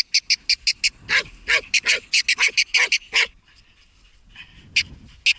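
Hunting laika barking at game in quick runs of short, sharp barks, three to four a second, breaking off for about a second and a half and then barking twice more near the end.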